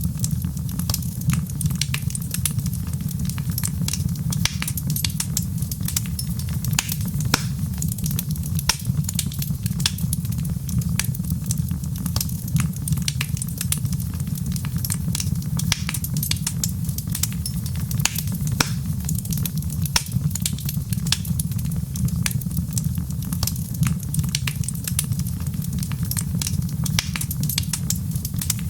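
Wood fire crackling in a fireplace: a steady low rumble of the burning fire with many irregular sharp pops and crackles.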